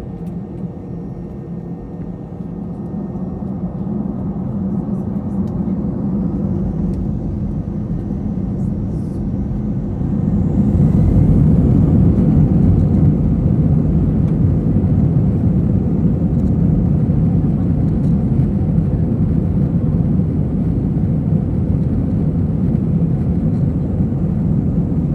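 Airliner cabin noise: a steady low rumble of jet engines and airflow that builds over several seconds and steps up about ten seconds in, then holds loud.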